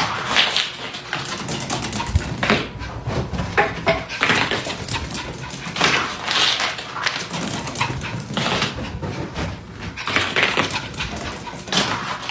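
Small dog barking and whining in repeated bursts.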